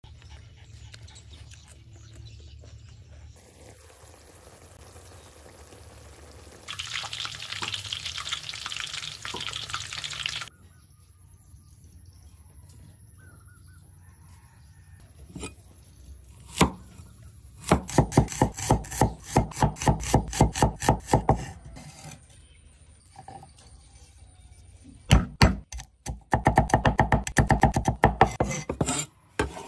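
Cleaver chopping garlic on a wooden board in two long runs of fast, sharp strokes, the loudest sounds here. Earlier, a few seconds of running water.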